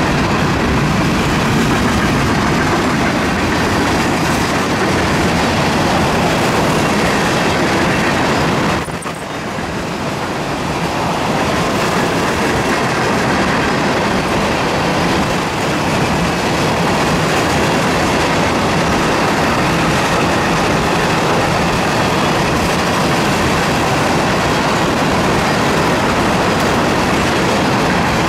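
Florida East Coast Railway freight cars passing at speed, first boxcars and then empty ethanol tank cars: steady, loud noise of steel wheels rolling on the rails. The sound drops briefly about nine seconds in, then builds back up.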